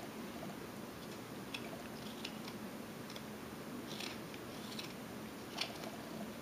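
Whittling knife taking small slicing cuts in a wooden carving: faint, irregular little clicks and scrapes a second or so apart, one slightly louder near the end.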